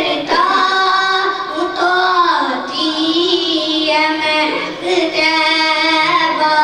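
A boy singing a naat solo into a microphone, in long held notes that bend and waver in pitch.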